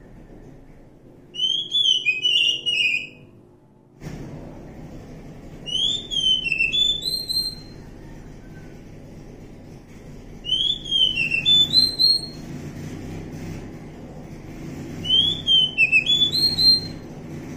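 Oriental magpie-robin (kacer) singing: four short phrases of clear, quick whistled notes, each lasting a couple of seconds and a few seconds apart, over a low steady hum.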